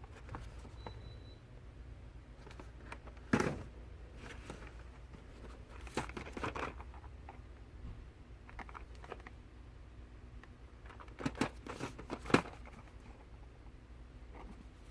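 Toy packaging being handled: scattered sharp clicks and crinkles, the loudest about three seconds in and again near the end, over a steady low hum.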